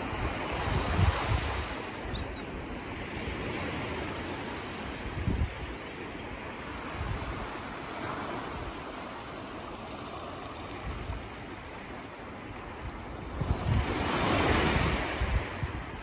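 Small waves breaking and washing up the beach in a steady hiss, the surge building to its loudest near the end, with wind gusting on the microphone.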